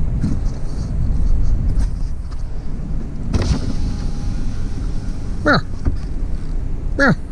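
Steady low rumble of a vehicle driving, with two short cries that fall sharply in pitch in the second half.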